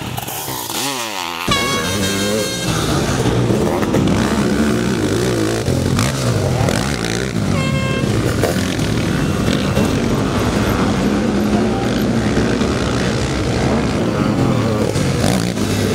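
Sidecar motocross outfits' engines revving hard, the pitch rising and falling as they accelerate out of turns and over jumps. Two brief high tones sound near 2 s and again near 8 s.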